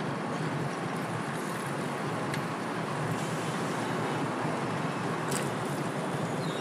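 Steady rush of wind and road noise from riding a fixed-gear bicycle among traffic.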